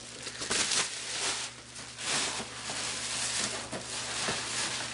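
Plastic packing wrap being pulled off an LCD monitor, rustling and crackling unevenly.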